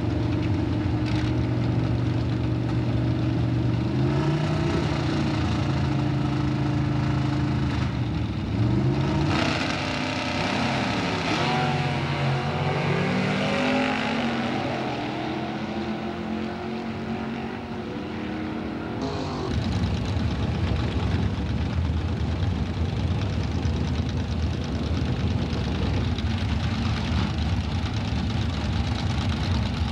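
Two drag-race cars' engines held at steady revs on the starting line, then launching and accelerating down the strip, the pitch climbing and dropping through the gear changes. About two-thirds of the way through it switches abruptly to the steady, rough idle of the next pair of cars on the line.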